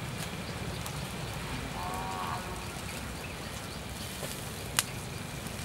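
Open wood fire burning steadily under a stone grill slab, crackling with faint scattered ticks and one sharp pop near the end. A brief animal call sounds about two seconds in.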